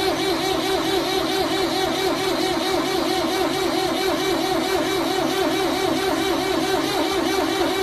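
Old Pentium III desktop computer running just after power-on, its fans and drives giving a loud, steady whir with a fast, even pulsing. A low hum under it drops out near the end.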